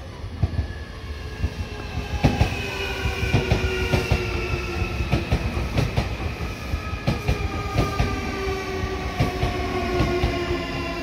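Semboku Rapid Railway 9300-series electric train arriving and braking. Several whining motor tones fall slowly in pitch as it slows, over repeated clacks of the wheels over rail joints.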